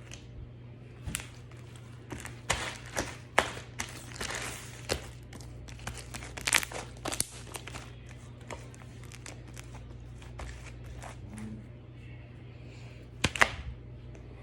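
Slime being squeezed and worked by hand, giving a run of crackling clicks and pops, busiest in the first half, with a louder pair of pops near the end.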